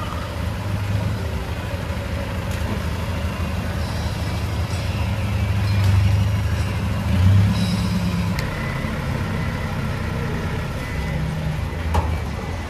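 Idling truck and pickup engines giving a steady low hum, growing louder for a moment about six to seven seconds in.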